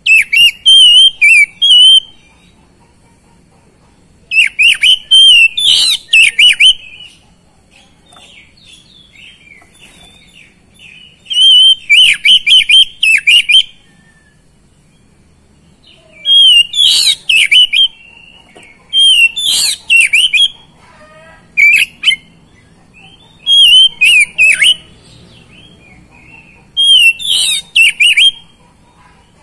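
Oriental magpie-robin singing loud, fast warbling phrases of whistled notes, each about one to two and a half seconds long, repeated about eight times with short pauses between.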